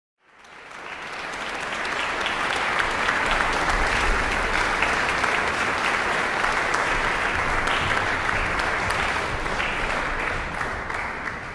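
Audience applauding, a dense steady patter of many hands clapping. It fades in over the first couple of seconds and drops away near the end.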